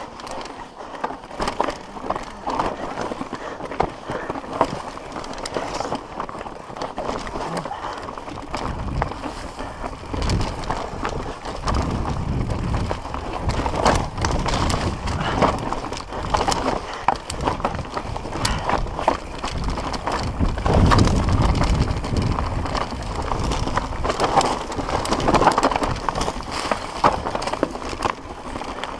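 Mountain bike descending a rough, rocky dirt trail: a continuous clatter and rattle of tyres striking rocks, chain slap and frame and suspension knocks, with a heavier low rumble through the middle stretch.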